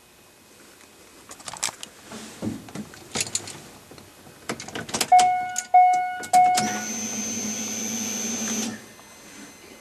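Inside a Factory 5 GTM kit car with Corvette electronics: a few clicks and knocks, then the Corvette-style warning chime sounds three times about half a second apart. After that a small electric motor runs steadily with a high whine for about two seconds and stops.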